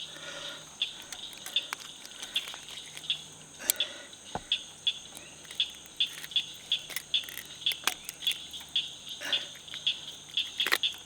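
Insects chirping in an even rhythm, a short high chirp about twice a second over a steady high-pitched hum, with a few sharp clicks.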